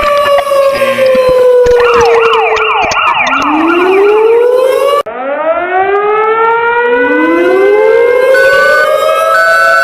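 Emergency alert alarm sirens: a wailing tone that falls slowly, then a fast yelping sweep at about four sweeps a second, then after a brief cut several overlapping wails rising in pitch, with short beeping tones coming in near the end.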